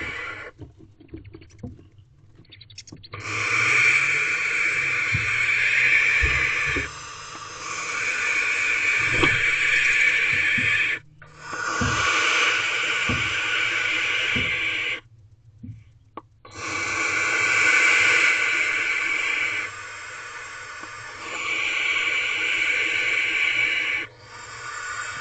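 Barn owls hissing in a nest box: long rasping hisses of a few seconds each, five in a row with short pauses between, and a few low thumps in the box.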